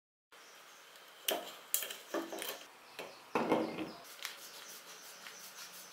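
Hard PVC plastic knocking and rubbing as a homemade PVC pressure spray bottle is turned and gripped in the hands: several sharp knocks and short scrapes over a faint steady hiss.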